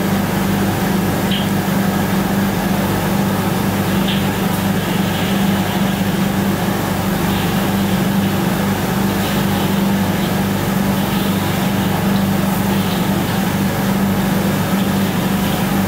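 Steady, loud mechanical drone of kitchen machinery, a constant low hum that does not change.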